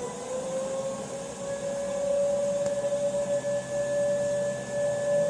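Outdoor civil-defense warning siren sounding its weekly test: one steady tone that rises a little in pitch at the start and then holds. A fainter, higher tone joins about a second and a half in.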